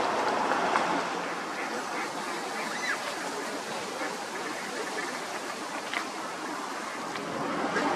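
Steady rush of churned river water, the wash of a motor cruiser that has just gone under a stone bridge. The boat engine's low hum fades out about a second in.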